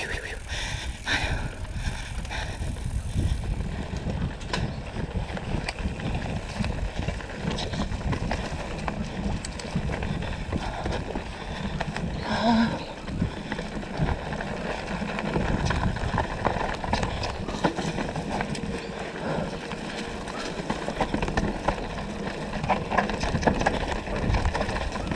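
Downhill mountain bike clattering and rattling over a rough dirt trail, with many quick knocks from the bike and a continuous low rumble throughout.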